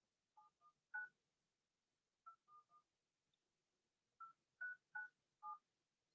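Faint touch-tone telephone keypad dialing a phone number: ten short two-tone beeps in three groups, three, then three, then four.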